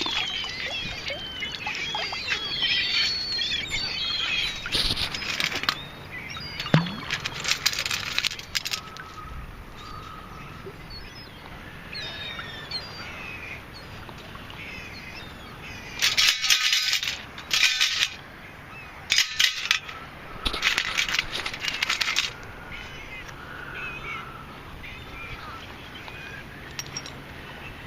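Birds calling outdoors in a series of short chirping calls, with several short loud bursts of scraping noise, the loudest about halfway through.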